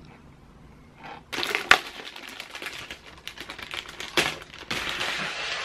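Plastic wrapping crinkling and rustling as scissors cut a plastic bag off foam packing, with sharp clicks and snips throughout; it starts about a second in.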